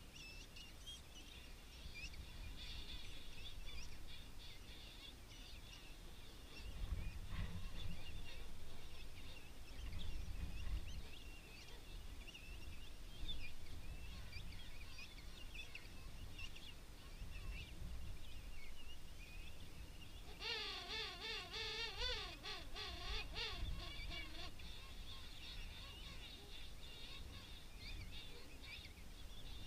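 King penguin colony calling: a steady chatter of many distant birds. About two-thirds of the way in, one nearer bird gives a loud warbling trumpet call lasting three to four seconds.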